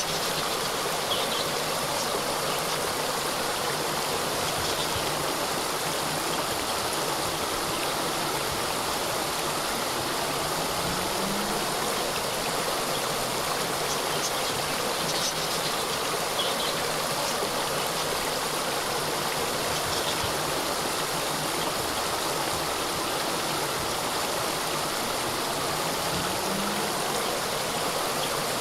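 Small waterfall flowing steadily, an even rush of splashing water.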